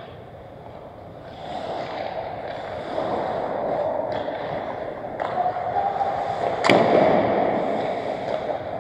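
Hockey skates scraping on rink ice, with a few sharp stick-and-puck clacks. The loudest clack comes about seven seconds in.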